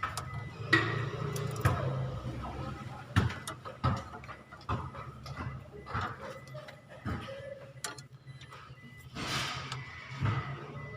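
Hand tools and metal parts clicking and knocking at irregular intervals while a crankshaft position sensor is fitted under a vehicle's engine. A short rustling noise comes about nine seconds in, over a steady low hum.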